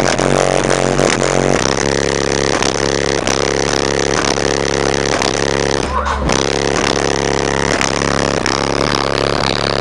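A car audio system playing loud, bass-heavy music through the subwoofers in an open hatchback boot. The bass note shifts about one and a half seconds in.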